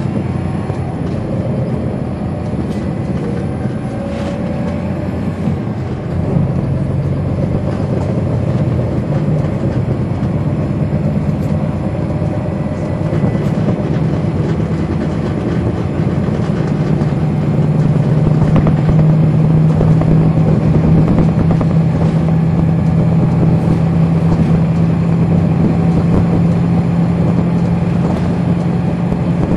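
Cummins ISL9 inline-six diesel of a NABI 40-SFW transit bus heard from inside the rear of the cabin while under way, a steady low drone that grows louder about six seconds in and again past the halfway mark.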